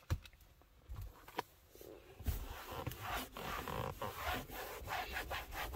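Microfibre towel wiping a leather car seat in repeated back-and-forth strokes, about two to three a second, starting about two seconds in after a few light clicks.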